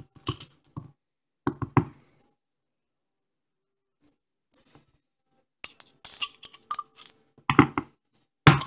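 Steel weights from an AR-15 carbine buffer sliding out of the buffer body and clinking onto the bench, heard as scattered metallic clicks and clinks: a few at the start, then a busier cluster with the loudest strikes near the end.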